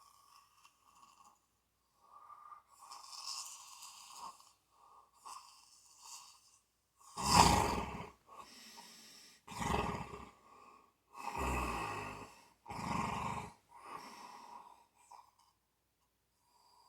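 Snoring in uneven breaths: softer, breathy snores first, then four louder, deeper snores from about seven seconds in, tailing off near the end.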